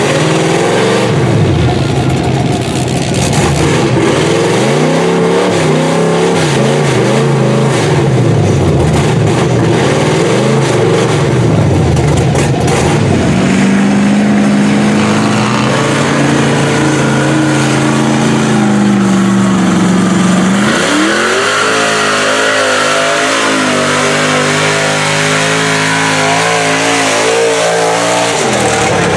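Lifted four-wheel-drive pickup trucks' engines revving hard while pushing through deep mud. The revs climb and drop again and again for the first dozen seconds or so, then hold fairly steady, then climb again about two-thirds of the way in and stay high with a wavering pitch.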